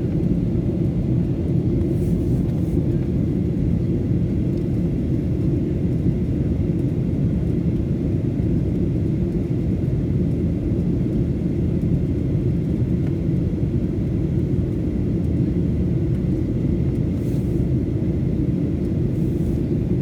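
Steady low rumble of a Boeing 737 airliner in flight, heard from inside the passenger cabin: engine and airflow noise running evenly.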